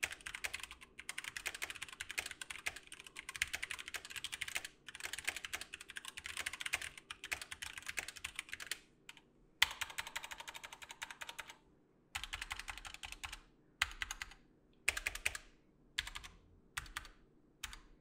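Typing on a Keychron K4 V2 mechanical keyboard with stock Gateron Brown switches and thin ABS keycaps in a plastic case. The owner says the board gives a faint pinging and ringing on each press. A fast, steady run of key clacks lasts about nine seconds, then gives way to short bursts of keystrokes with pauses between them.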